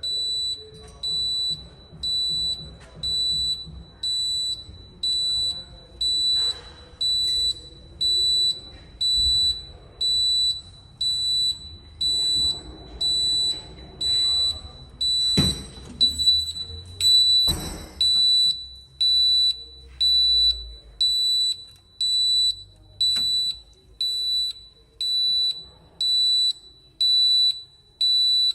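Advanced MxPro 5 fire alarm panel's internal buzzer beeping at a high pitch about once a second, the panel's fault warning for a sounder open-circuit fault. Two knocks sound about halfway through.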